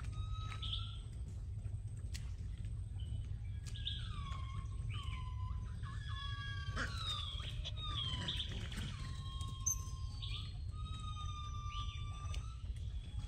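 A troop of long-tailed macaques giving many overlapping high coo calls, each sliding down in pitch and then held briefly. A steady low rumble runs underneath.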